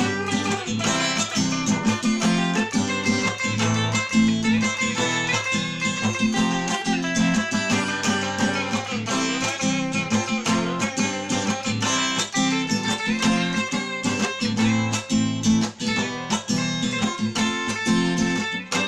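Instrumental break of a song: guitar music with strummed and plucked strings over a steady rhythm, no singing.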